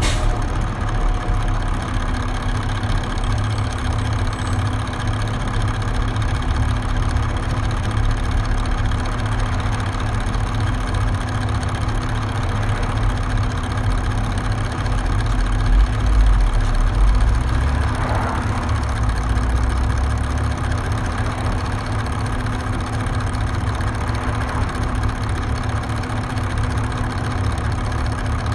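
Detroit Diesel Series 40 inline-six diesel of a 2001 New Flyer D40LF transit bus running steadily with a deep rumble and a steady hum. A short rising-and-falling whine cuts through about 18 seconds in.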